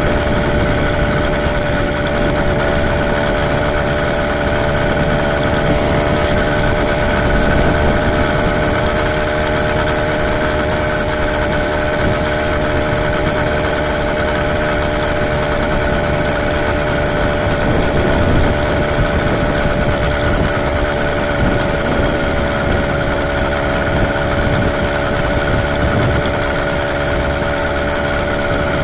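Motorized bicycle's 80cc two-stroke kit engine running at a steady cruising speed, its pitch holding even, over a steady rush of wind and road noise.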